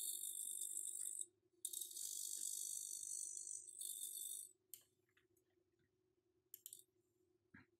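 Small hobby servo motor whirring as it turns a 3D-printed grid fin through a link: a high-pitched buzz for about a second, a short gap, then about three seconds more as the fin swings back, with one brief blip near the end.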